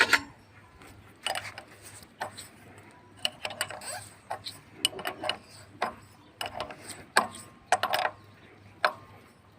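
Irregular metallic clicks and clinks of a spanner working the fittings and nuts of a diesel engine's fuel pump, some with a short ring, after the air has been bled from the pump.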